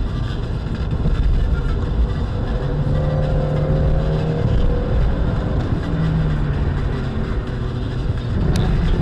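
Car cabin noise heard through a dashcam while driving at road speed: a steady low rumble of tyres and engine, with a humming engine note coming up from about three to five seconds in and a sharp click near the end.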